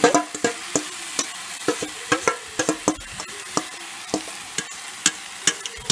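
Marinated chicken frying in hot oil with golden-brown onions, sizzling steadily, while a cooking utensil knocks and scrapes against the pan again and again.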